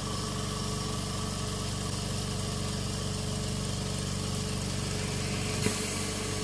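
Invacare Perfecto oxygen concentrator's twin-head compressor running steadily with a low, even hum, just after start-up. A short click and hiss comes about a second before the end.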